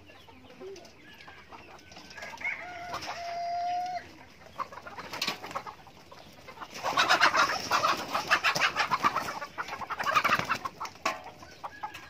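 A flock of chickens clucking, with a long held rooster crow about three seconds in. From about seven seconds in the clucking swells into a loud, rapid cackling that lasts a few seconds.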